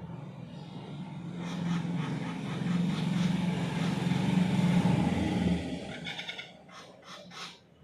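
A motor vehicle passes by, its engine and road noise swelling to a peak and fading away over about six seconds. A few short, high bird chirps follow near the end.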